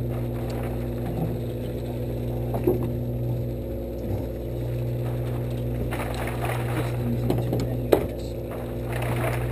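Fishing boat's engine running with a steady low hum, and a few knocks and clatter on deck, the sharpest near the end.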